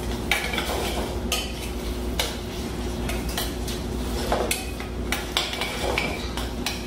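Metal spoon stirring sautéing onion, garlic and chopped bell peppers in butter in a stainless steel pan, with irregular clinks and scrapes against the pan over the sizzle of the vegetables.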